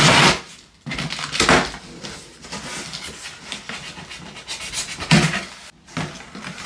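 A cardboard shipping box being torn open by hand, with tearing, scraping and rustling of its flaps and packing, and several louder rips. A dog pants through it.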